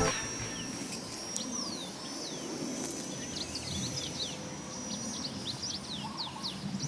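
Small birds chirping: many short, quick falling chirps, scattered all through, over a low steady outdoor background with a thin, steady high-pitched tone.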